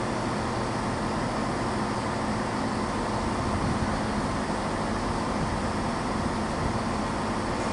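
Steady drone of diesel train engines, a constant low hum over a wash of background noise with no sudden sounds.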